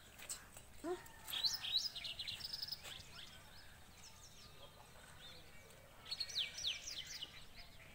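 Small birds chirping in quick runs of short high notes, once about a second in and again about six seconds in.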